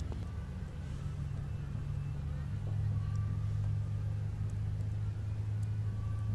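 A low, steady engine hum that grows louder about three seconds in.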